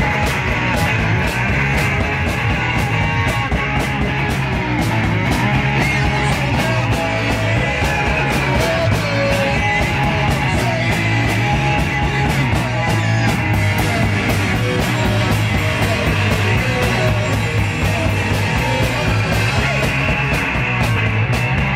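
Live punk rock band playing loud and fast: electric guitar and a drum kit with rapid cymbal hits, without a break.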